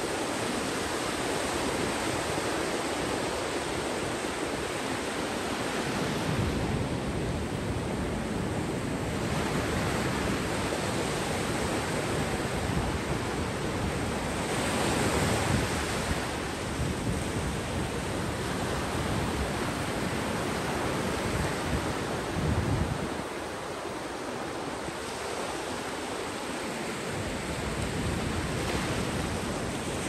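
Sea waves breaking and washing up on the beach: a steady rush of surf that swells and eases every few seconds.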